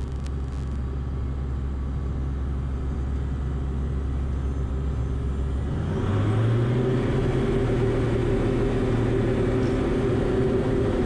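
Diamond DA40 light aircraft's piston engine and propeller running steadily. About six seconds in, power comes up for the takeoff roll: the note rises in pitch, gets louder, and holds there.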